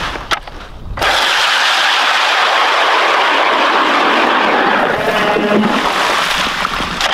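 ION Alpha Plus 10-inch electric ice auger starting up about a second in and drilling steadily through 7–8 inches of lake ice, the motor's whine mixed with the grinding of the blades through the ice. The sound changes near the end as the bit breaks through into slush and water.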